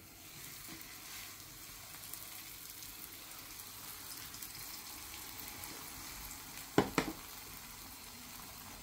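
Steady sizzling hiss from the stovetop as a rolled paratha heats in a nonstick pan and a saucepan of chai nears the boil. About seven seconds in come two sharp knocks close together, as the tea pot is pulled aside off the burner.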